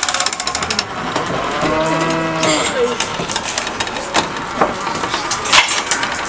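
A cow mooing once, a single long call about two seconds in. Around it, soil and gravel from shovels clatter onto a coffin lid, with a quick rattle at the start and a few sharp knocks later on.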